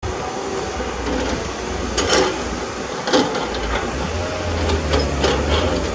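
Heavy-equipment engine running, with two sharp knocks about two and three seconds in. A steady low engine hum becomes stronger from about four seconds in.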